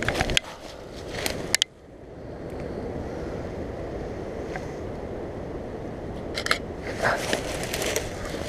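Handling noise from a hand-held camera: scrapes and knocks in the first second and a half, then a steady low rush, with crackling twigs and rustling undergrowth underfoot near the end.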